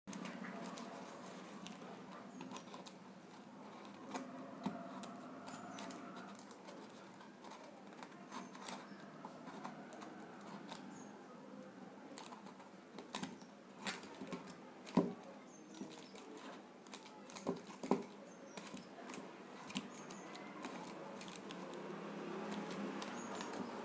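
Faint handling noise of a plastic bowl wrapped in rolled-paper strips being pressed and turned by hand: scattered small clicks and taps, the sharpest about 15 and 18 seconds in, over faint steady background noise.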